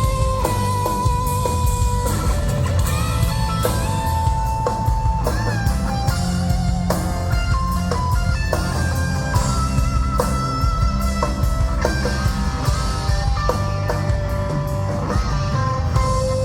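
Live rock band playing an instrumental break: an electric lead guitar plays held, bending notes with vibrato over bass and a drum kit.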